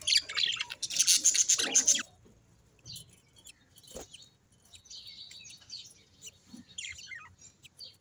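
Budgerigar in a clay-pot nest: a loud burst of scratchy chatter and rustling for about the first two seconds, then faint, scattered high chirps.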